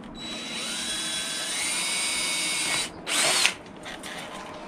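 Cordless drill boring a pilot hole into the bottom of a vinyl railing section. The motor runs for nearly three seconds, its whine rising in pitch as it speeds up, then stops, and a second short burst of drilling follows.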